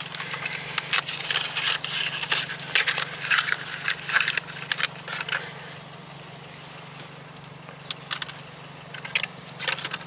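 Cardboard spark plug boxes being handled and a new plug taken out: a quick run of scrapes and crinkles for about five seconds, then a few scattered clicks near the end, over a steady low hum.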